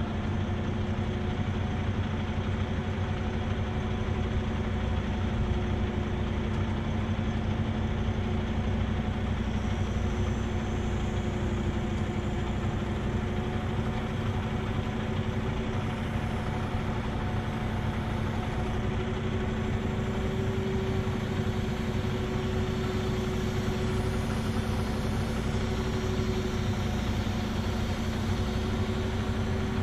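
Heavy diesel truck engine running steadily at idle, a continuous drone that does not change in pitch.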